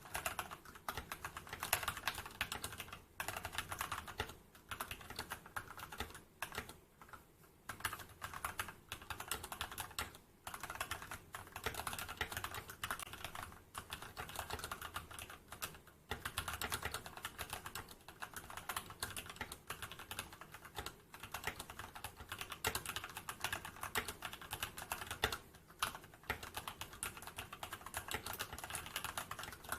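Fast, continuous typing on an Anne Pro 2 mechanical keyboard with linear Gateron Red switches: a dense stream of key clacks, broken by a few short pauses.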